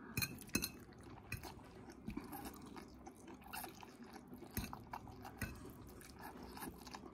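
Quiet chewing of noodles, with scattered faint clicks of forks against a plate.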